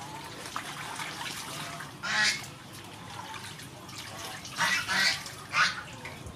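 Several short honking bird calls, one about two seconds in and a quick run of them near the end, over faint sloshing and dripping water as cow's feet are washed in a basin and lifted out.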